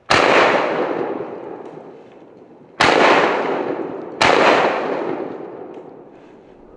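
Three shotgun blasts, the second about 2.7 seconds after the first and the third about 1.4 seconds later, each going off sharply and fading away over about two seconds.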